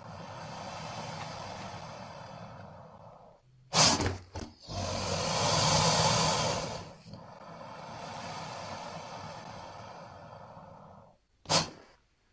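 Sound-designed breathing of a giant prehistoric snake creature (Titanoboa): three long, airy breaths. Between the first two come two short sharp snorts about four seconds in, and one more snort comes near the end.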